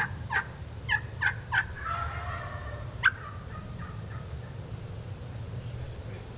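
Wild Merriam's turkey calling: a quick run of yelps, then a rattling gobble about two seconds in, then one sharp, loud note just after three seconds.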